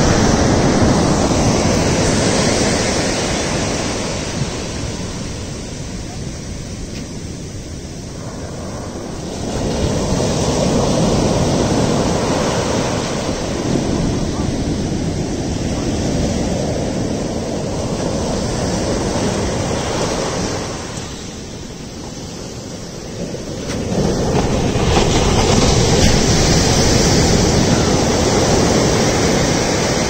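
Sea surf breaking and washing up a sandy beach: a steady rushing noise that swells and eases, with two quieter lulls between the louder sets of waves.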